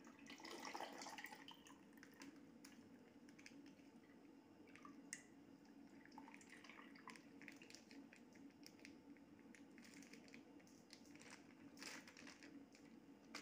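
Faint squishing and dripping as half-thawed milk is squeezed out of a plastic milk packet into a steel mixer-grinder jar, loudest about a second in, with a few soft crinkles and clicks of the packet being handled.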